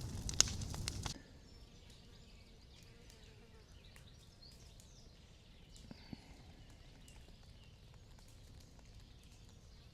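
Bonfire of storm-felled wood and stumps crackling with sharp pops, cut off abruptly about a second in. After that, quiet outdoor ambience with faint bird chirps and a single soft knock near the middle.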